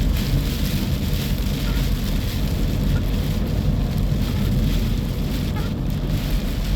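Steady low road-and-engine rumble inside a moving vehicle's cab, with rain hitting the windshield and body as an even hiss over it.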